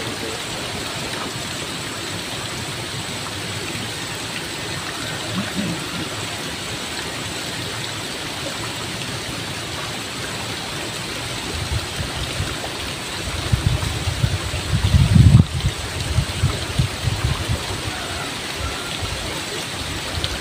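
Steady rushing of a stream's flowing water. A stretch of low rumbling rises over it about two-thirds of the way through and is loudest about three-quarters in.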